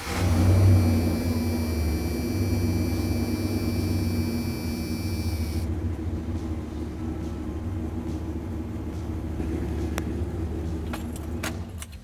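1996 Dodge Ram pickup's gasoline engine catching as it starts, then idling: rough at first, then smoothing out. A thin high whine sits over it for about the first half. The engine is switched off near the end.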